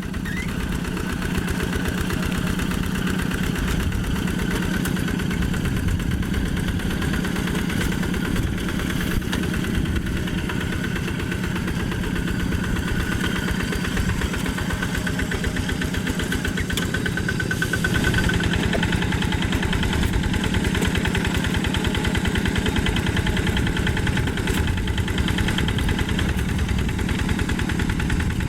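Single-cylinder Yanmar diesel engine of a Quick G1000 walking tractor running with a steady, rapid chugging, a little louder about two thirds of the way through.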